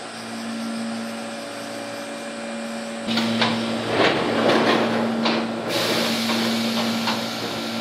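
Steady electrical hum of a stationary ex-Keio 3000 series commuter car. About three seconds in, its single-leaf sliding door runs shut with a string of clattering knocks, then a steady hiss of air from the pneumatic door engine.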